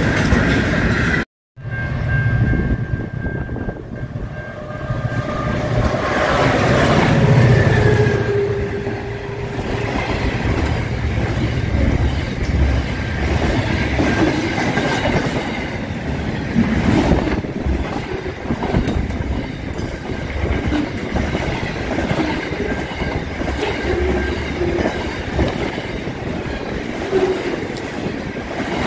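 Container freight train passing close by: the wagons rumble and clack steadily over the rails. A thin high tone rings for a few seconds near the start.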